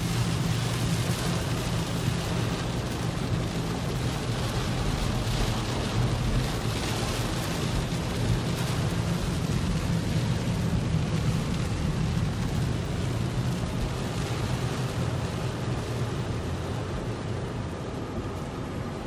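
Heavy rain pelting a car's windshield and roof, heard from inside the cabin, over a steady low hum from the car.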